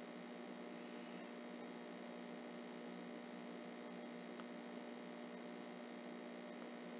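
Faint steady electrical hum with hiss, one constant low tone over a flat background noise that does not change.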